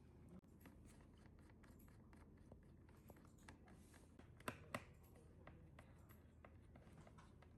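Faint small clicks and scratches of hands and a small tool working on a laptop's casing, with two sharper clicks about four and a half seconds in.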